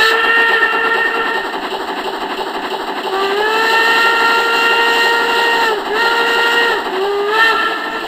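Steam locomotive whistle blowing two long blasts and then three short ones. Each blast slides up in pitch as it opens, over the continuous rushing, rumbling noise of the train running.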